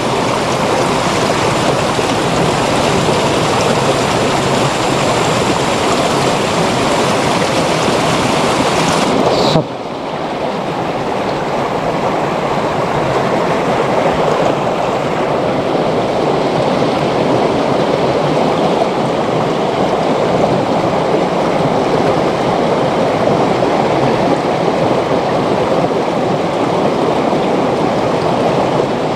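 Steady rush of water flowing through a small irrigation ditch, loud and close. About ten seconds in the sound changes abruptly, the hiss becoming duller.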